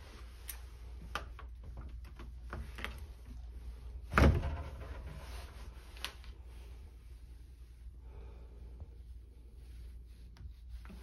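Small minibar fridge door being handled and pulled open, with a few light clicks and one loud thump about four seconds in, then another click about two seconds later.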